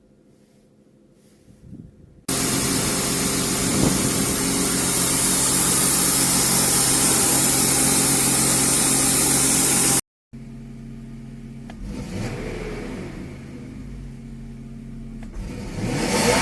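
BMW E39 engine being cranked over by the starter without catching: a loud, steady run of about eight seconds that starts and stops abruptly. After a short break a quieter stretch of engine sound follows and swells near the end.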